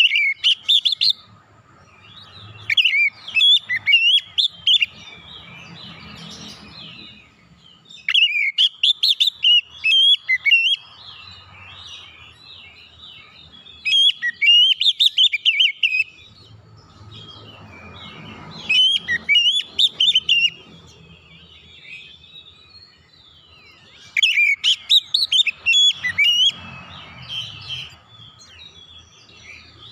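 Male oriental magpie-robin singing loud, rapid bursts of varied whistled and shrill calling notes, each burst a second or two long and repeated about every four to six seconds.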